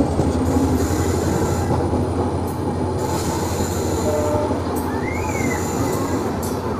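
A diesel-hauled passenger train, the Udaipur–Asarva Intercity, passing close by: a steady rumble of wheels and coaches over the rails. A brief high squeal comes about five seconds in.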